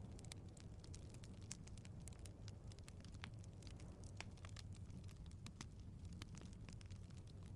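Faint wood fire crackling: irregular small pops and snaps, several a second, over a low, steady rumble of flames.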